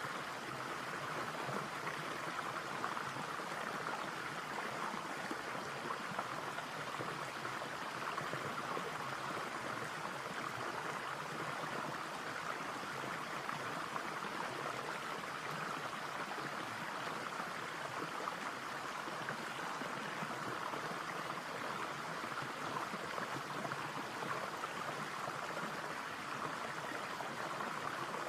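Small forest stream flowing: a steady, even rush of water.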